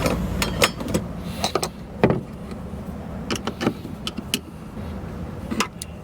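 Irregular sharp clicks and knocks of hand work on a fuel pump assembly, with plastic fuel-line clips catching and parts being handled.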